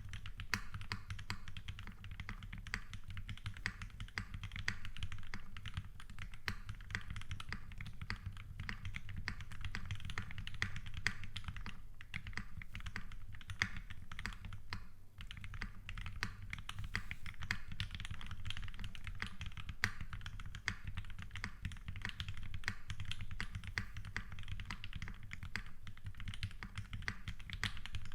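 Continuous fast typing on a custom mechanical keyboard, an Aurora Input Series 65 with a brass plate, GMK keycaps and lubed FFF switches. It gives a dense stream of key clacks, with a brief lull about halfway through.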